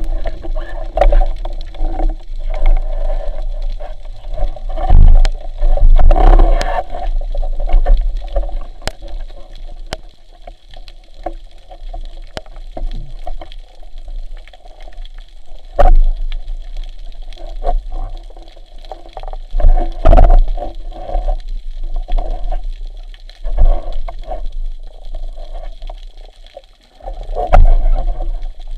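Water gurgling and sloshing around an underwater camera, with scattered clicks and several louder knocks.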